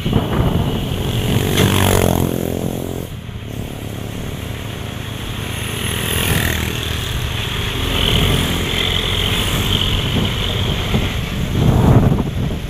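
Motor vehicles passing close by on a road, their engines running. One passes about two seconds in, its engine note rising and then falling.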